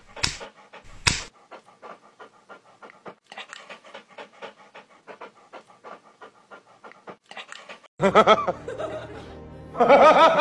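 German Shepherd dog panting in rapid, even short breaths close up, with two louder sharp breaths in the first second or so. Near the end a louder, wavering sound with a bending pitch breaks in.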